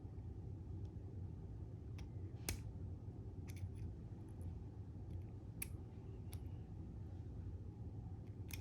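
Faint, scattered clicks from a disc detainer pick turning the discs inside a Davidson 70mm disc detainer lock, about seven over several seconds, over a low steady hum.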